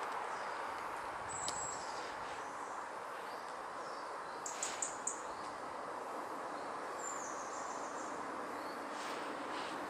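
Outdoor ambience: a steady background hiss with a few short, high bird chirps: one about a second and a half in, a quick run of three around five seconds, and another about seven seconds in.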